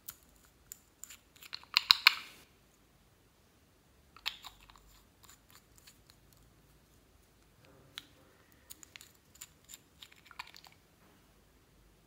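Clear slime being squeezed and worked by hand, with sticky clicks and crackling air-bubble pops. The loudest burst comes about two seconds in, and smaller clusters follow around four seconds and near the end.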